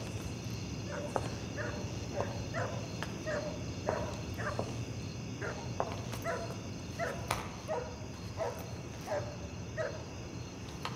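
A dog barking over and over, about two barks a second, with a steady high-pitched ringing behind it.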